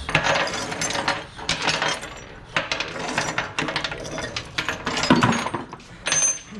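Small pieces of scrap brass and copper fittings clinking and clattering against each other as they are handled and tossed into a container, a steady run of irregular metallic impacts.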